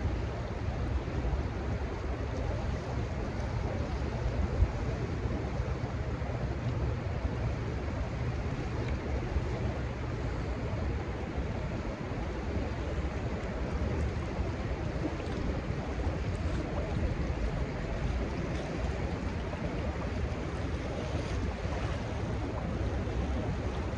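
Steady rushing of churning tailwater below a dam, with wind rumbling on the microphone. A single brief knock a little under five seconds in.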